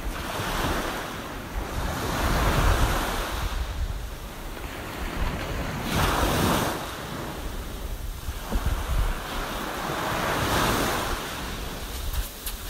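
Surf washing ashore in several slow swells, with wind buffeting the microphone as a low rumble.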